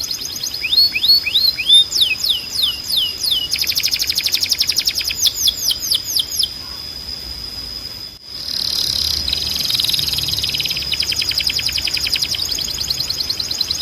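Spanish Timbrado canary singing: fast trills and repeated downward-sweeping notes over a high steady note. The song breaks off briefly about eight seconds in, then resumes.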